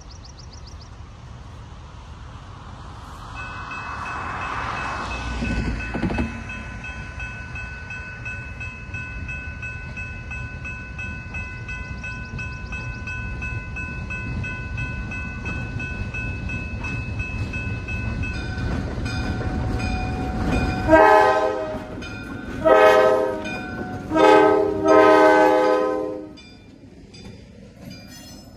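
Diesel locomotive running past with a steady low engine rumble that slowly grows louder, with a faint high whine over it. About twenty seconds in, its horn sounds three blasts, the last the longest.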